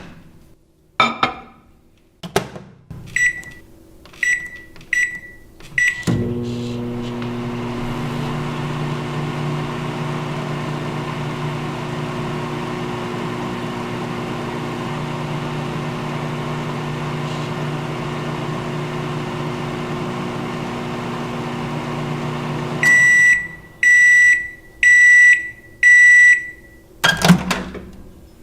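Microwave oven in use: a door clunk and four keypad beeps, then the oven running with a steady hum for about seventeen seconds. It stops with five loud beeps signalling the end of the cycle, followed by a clunk of the door opening.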